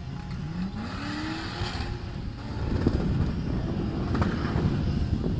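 Off-road 4x4 vehicle's engine revving, its pitch rising over about a second near the start and running on under load, with a couple of short knocks; a rough wind rumble on the microphone lies under it.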